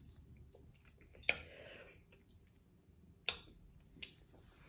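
Faint: two sharp clicks about two seconds apart, the first followed by a brief soft rustle, and a fainter click near the end.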